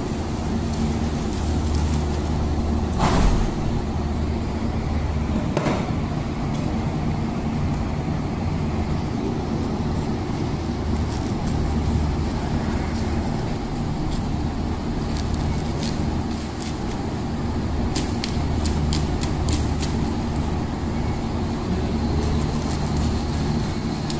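A steady, low machine hum made of several low tones. Two sharp knocks come in the first several seconds, and a quick run of faint ticks comes later.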